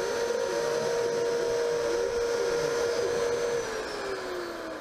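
CNC milling machine's spindle running an end mill through an acrylic plate, a steady whine. About three and a half seconds in the spindle begins to slow, its pitch falling as it winds down.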